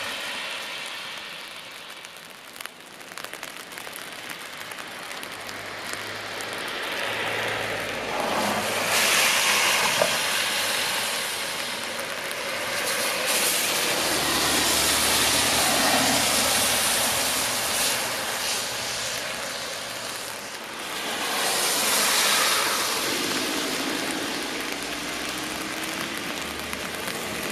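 Road traffic passing on a wet road: tyre hiss from several cars swelling and fading one after another.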